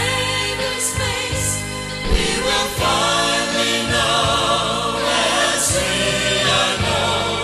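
Mixed choir of men's and women's voices singing a gospel song together in several parts, with long held notes.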